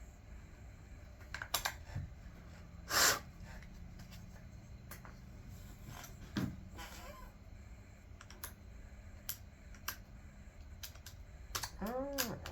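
Scattered light clicks and taps of hand tools and small screws being worked out of a Stihl MS 200T chainsaw, with one louder scraping rasp about three seconds in.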